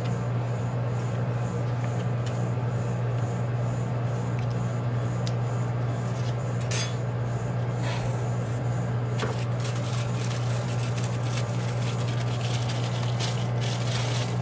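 Metal spatulas scraping and tapping on the frozen steel plate of a rolled-ice-cream cold plate. There are a few single clicks at first, then dense scraping and clicking over the last third. Under it runs the steady low hum of the cold plate's refrigeration unit.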